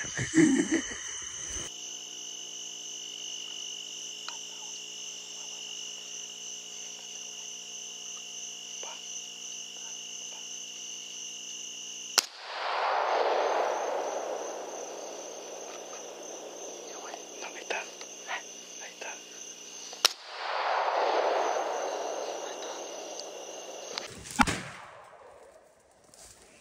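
Three rifle shots fired at feral hogs at night through a thermal scope, the first two each followed by a couple of seconds of fading noise. Before the first shot, crickets chirp steadily over a low electronic hum.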